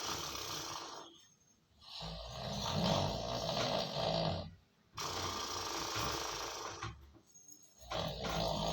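A man snoring on purpose as a prank: long, heavy snores one after another, each about two seconds, with short pauses for breath between them, about three and a half in all.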